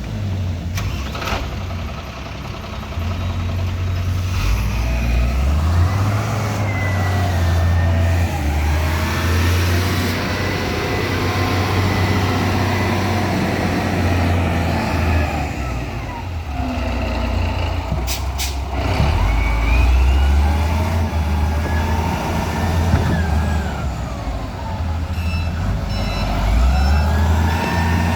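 Heavy diesel engines of a truck and road machinery running and revving under load, the engine pitch rising and falling, with short repeated beeps near the end.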